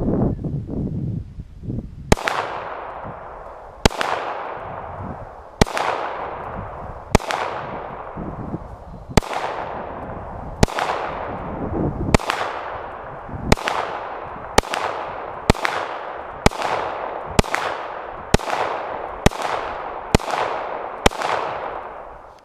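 Semi-automatic rifle firing single shots, about sixteen in all, each with a long echoing tail; the shots start about two seconds in, spaced more than a second apart, and speed up to roughly one a second near the end.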